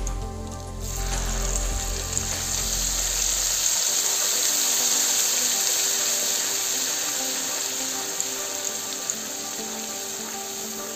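Oil and ground spices sizzling in a kadhai as wet ground spinach-and-vegetable paste goes into the hot oil. A loud, steady sizzle starts about a second in and carries on, with soft background music underneath.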